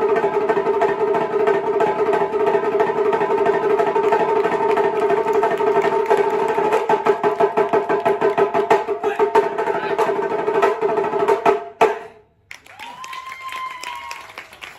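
Two small rope-tensioned taiko drums played with wooden sticks in a fast, ringing roll that breaks into separate heavy strokes in the second half. The playing ends with a final stroke about twelve seconds in, and only faint sound follows.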